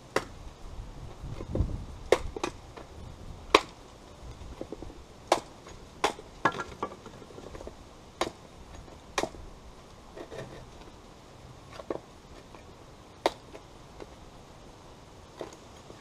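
Small UST ParaHatchet hatchet chopping into an upright wooden board: about a dozen sharp strikes at uneven intervals of one to two seconds, some coming in quick pairs.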